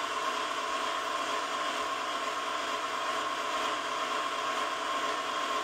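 Steady whirring hum of a running machine with a constant high tone.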